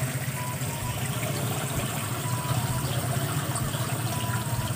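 Steady hum of a fish-tank water pump, with water churning and splashing where its outlet and aeration stir the surface.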